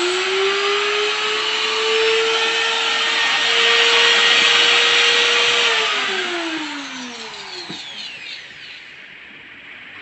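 Makita trimmer router's electric motor running free with no load. It is already up to speed with a steady whine, then about six seconds in it is switched off and winds down, falling in pitch until it stops about two seconds later.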